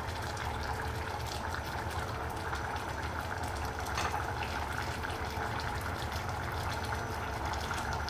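Chicken curry simmering in a stainless steel saucepan on an induction hob, a steady bubbling with a low hum under it, as the broth cooks down.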